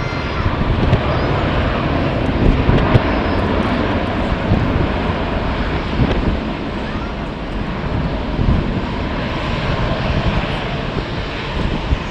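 Airliner engine noise, a steady rushing sound, mixed with strong wind buffeting the microphone.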